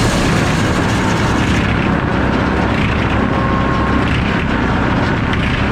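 F-pattern circular head saw of a sawmill running steadily and loudly, its blade cutting through a log on the carriage.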